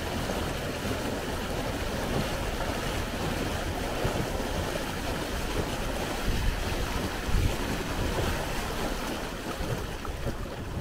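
Water rushing past a dinghy's hull and churning in the wake of an electric outboard, steady throughout; the motor itself is inaudible under the water noise. Wind buffets the microphone.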